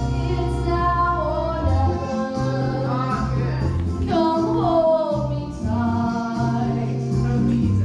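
A song: singing over instrumental backing with a steady bass line.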